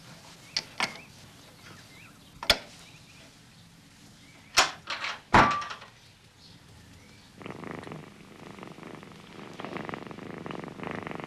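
A few sharp knocks and clunks from the cat puzzle box's latch and door, the loudest two about halfway through. Then, from about two-thirds in, a cat purring steadily.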